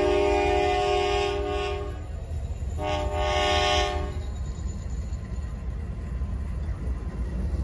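Diesel freight locomotive's air horn: a long blast that stops about two seconds in, then a shorter blast of the same chord about a second later. Beneath it, the low rumble of the locomotives rolling past close by carries on after the horn ends.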